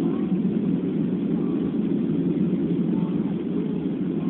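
Steady, low drone of an airliner's cabin in flight: engine and airflow noise heard from a window seat, even and unbroken.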